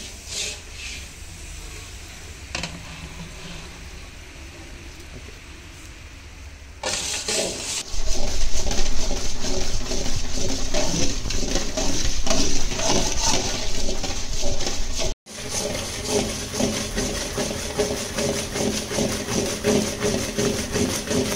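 Sugar syrup boiling and bubbling in a large iron kadai while a long metal ladle stirs and scrapes through it. Softer for the first several seconds, then much louder, dense bubbling and scraping from about a third of the way in as the syrup froths up.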